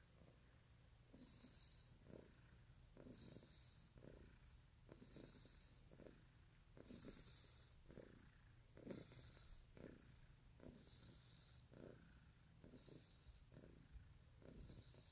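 Persian cat purring faintly. The purr swells and fades in a slow rhythm, about once every two seconds.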